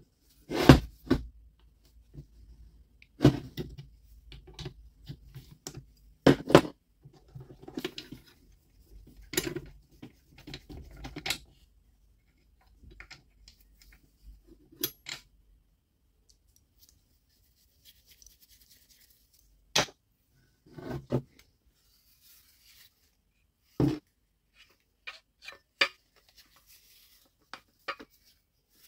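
Irregular clicks, knocks and light scraping from taking apart a Milwaukee M18 CCS55 cordless circular saw: an adjustable wrench working at the motor, and the plastic handle housing and metal base and shoe being shifted and separated on a wooden bench. A few louder knocks stand out among the small clicks.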